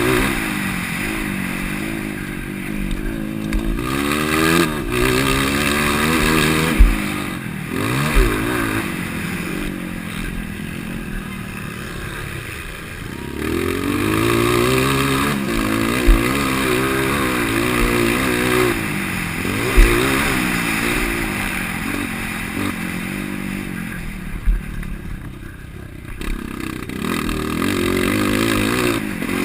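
230 cc four-stroke dirt bike engine, with an aftermarket header and exhaust tip, racing: it revs up and drops back again and again through gear changes and throttle. A few sharp thumps come through, about a third of the way in and around the middle.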